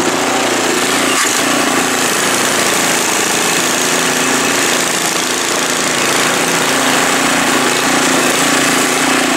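Single-stage snowblower's Briggs & Stratton four-stroke OHV engine running steadily under load, with the hiss of powder snow being thrown from the chute.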